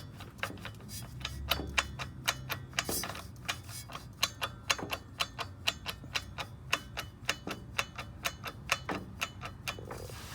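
Rapid, regular clicking from a high-mileage Volvo XC90's driveline while driving under power, several clicks a second over a low engine and road drone. The owner suspects a failed CV joint on the driveshaft.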